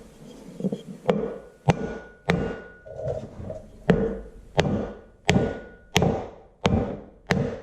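Hammer blows on a block of wood, about ten evenly spaced strikes roughly two-thirds of a second apart, driving a new seal sleeve onto a Farmall Super MTA front wheel hub. A short ringing tone follows some of the blows.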